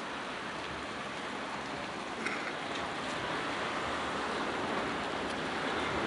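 A steady, even hiss like white noise, getting slightly louder in the second half, with a few faint clicks, the first a little over two seconds in.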